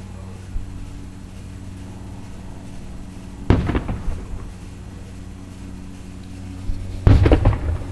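Aerial firework shells bursting: one bang about three and a half seconds in, then a louder run of several sharp bangs near the end, each trailing off in a rumble. A steady low hum runs underneath.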